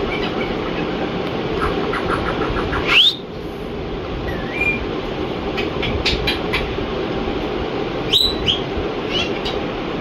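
Rose-ringed parakeet whistling: a quick run of soft chattering notes, then two sharp rising whistles about five seconds apart, with a short upturned whistle and a few clicks between them. A steady background rumble runs underneath.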